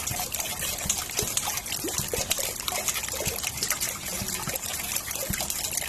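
Steady tropical rain falling: an even hiss of rain with many separate close drops splashing and ticking throughout.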